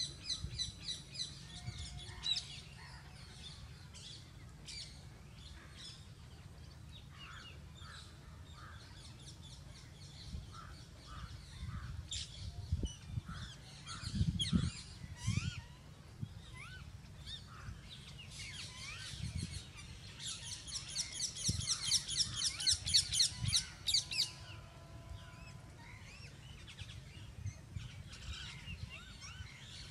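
Wild birds calling: a fast, evenly repeated run of high chirps near the start and again about two-thirds of the way in, with scattered short calls in between. A steady low rumble runs underneath, with a few low thumps around the middle.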